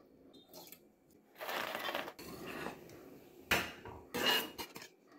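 Bursts of crunching, rattling noise and sharp clatters of a steel slotted spoon against a steel pan of soya chunks in water, the loudest two knocks coming about three and a half and four seconds in.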